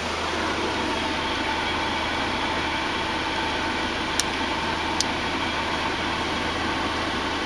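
Mercedes-Benz M111 four-cylinder petrol engine (code 111.978) idling steadily, with two short sharp clicks about four and five seconds in.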